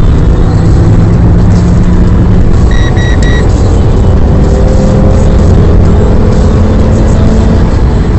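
Fiat Stilo Abarth's 2.4-litre five-cylinder engine pulling hard with road and wind noise, heard from inside the cabin on a phone microphone; the engine note climbs slowly through the second half. About three seconds in come three short electronic beeps.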